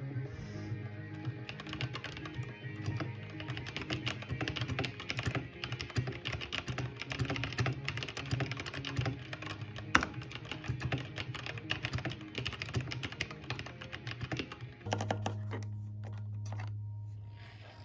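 Fast typing on a keyboard fitted with Macintosh-style keycaps, a dense stream of irregular key clacks over background music. The typing stops about fifteen seconds in, leaving only the music.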